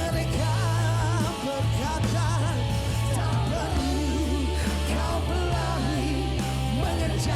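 A band playing a song live, with a singer's voice wavering over guitar and sustained bass notes.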